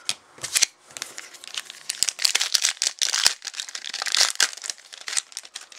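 Plastic wrapper of a Fleer EX basketball card pack crinkling as it is torn open and pulled off, a dense run of sharp crackles that is thickest in the middle.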